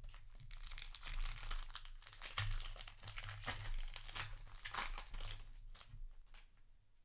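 Foil wrapper of a Magic: The Gathering play booster pack crinkling and tearing as it is opened by hand. The crackling dies away about six seconds in.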